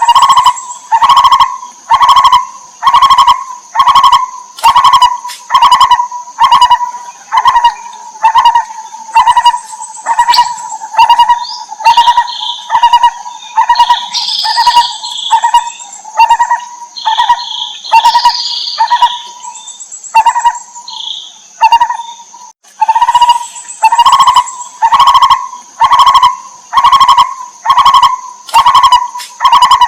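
Lineated barbet calling: a loud, mellow note repeated rhythmically, a little more than once a second, with a short pause about 22 seconds in. Between about 12 and 20 seconds, higher chirping notes join in. A steady high-pitched drone runs underneath.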